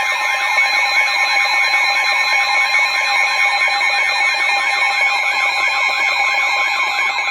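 NOAA Weather Radio warning alarm tone sounding for a severe thunderstorm warning. It is a loud, steady tone with a warbling, siren-like alarm sweeping up and down several times a second over it.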